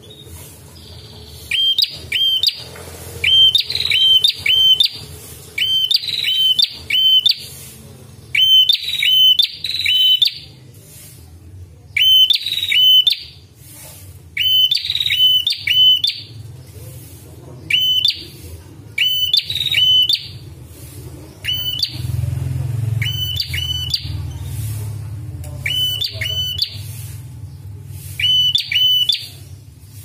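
Red-headed prenjak (a tailorbird) calling: sharp, ringing notes in quick clusters of two to four, repeated every second or two, over a low steady hum.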